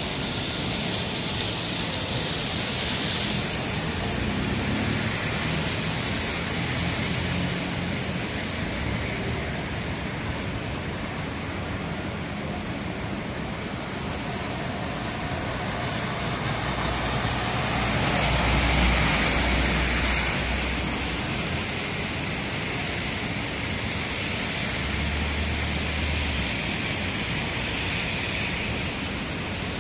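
City street traffic on rain-wet asphalt: a steady hiss of tyres on the wet road with engines passing. A heavier vehicle swells past about two-thirds of the way through, and another low rumble follows shortly after.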